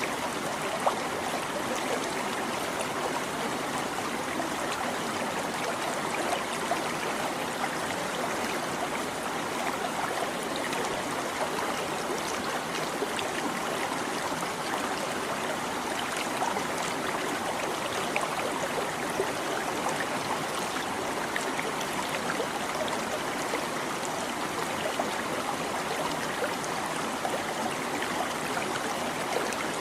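Small stream babbling and trickling over rocks, a steady rush of water with little splashes scattered through it.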